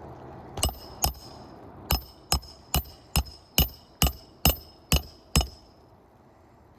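Hammer striking roofing nails to fasten a replacement asphalt shingle: eleven sharp blows with a metallic ring, two spaced ones, then a steady run of about two a second that stops a little after five seconds in.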